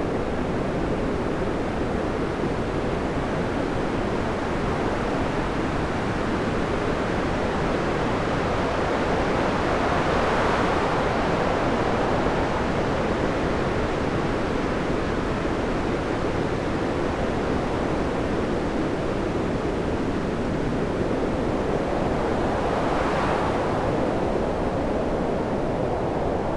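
Stormy sea: rough waves and surf in a continuous, heavy wash, with two waves swelling and breaking louder about ten seconds in and near the end.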